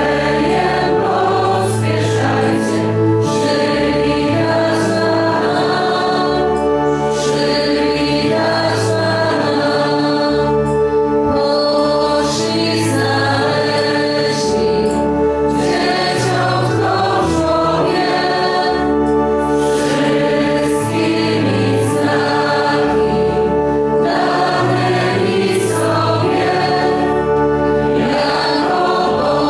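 Church choir singing a hymn with instrumental accompaniment, its sustained low bass notes changing every second or two.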